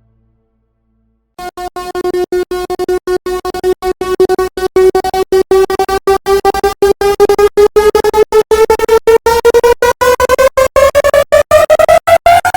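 Synthesized suspense riser sound effect: after a moment of silence, a buzzy electronic tone starts, chopped into rapid stuttering pulses that speed up. Its pitch creeps upward and climbs more steeply near the end, building tension.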